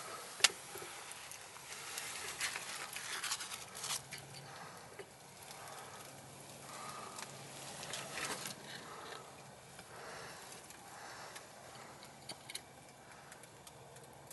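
Faint rustling and crackling from dry leaves and debris being disturbed, in scattered short bursts, with one sharp click about half a second in.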